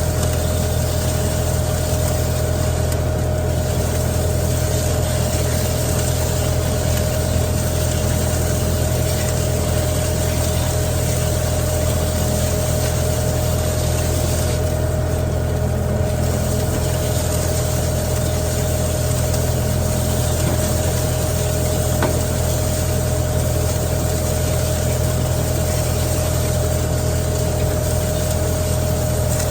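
Tractor engine running at a steady speed while pulling a seed drill, a constant hum with a steady whine on top.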